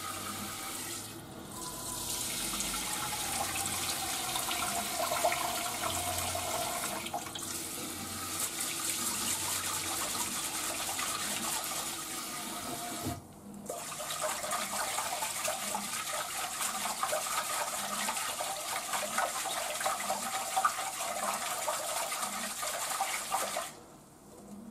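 Kitchen tap running into a rice cooker's inner pot while rice is washed in it. The flow drops out briefly a few times, and the rushing stops near the end as the tap is shut off.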